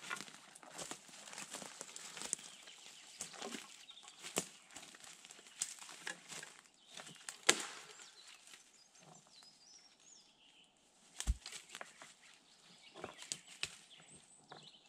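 Dry leaf litter and moss rustling, with irregular sharp cracks of small twigs snapping, as moss and forest-floor debris are pulled off a mound by hand and trodden on. The sharpest crack comes about seven and a half seconds in, and a dull thump comes about eleven seconds in.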